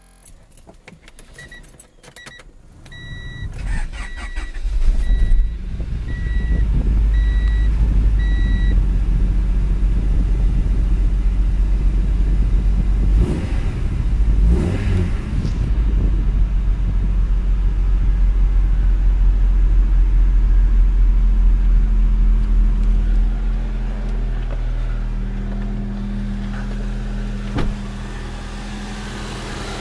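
Honda Prelude's H22A1 four-cylinder engine cranked and started about five seconds in, then running at a steady idle. An electronic warning beep repeats evenly through the first nine seconds or so.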